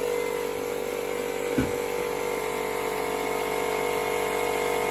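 Milwaukee M12 cordless inflator running with a steady hum, pumping air into a waterlogged boiler expansion tank to force the water out through a drain hose. A single knock sounds about a second and a half in.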